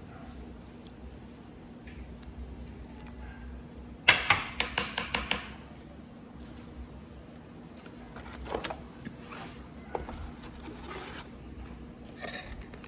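Trading cards and a rigid clear plastic top loader being handled: a quick run of about eight sharp plastic clicks and taps about four seconds in, then a few softer taps and rustles later. A faint steady hum lies underneath.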